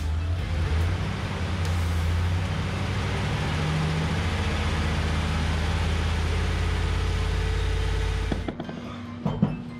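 A 2015 Chevrolet Silverado's engine running steadily on its first run after a fresh oil change, then stopping abruptly about eight seconds in. A few sharp clicks follow near the end.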